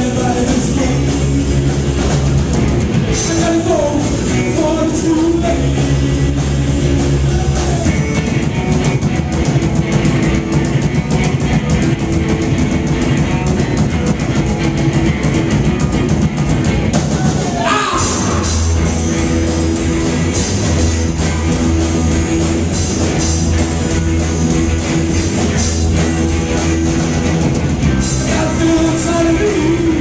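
Loud live rock band: distorted electric guitars, bass guitar and a drum kit, with a singer. About two-thirds of the way through the band stops for a moment, a quick rising guitar slide follows, then the band comes back in with a heavier bass line.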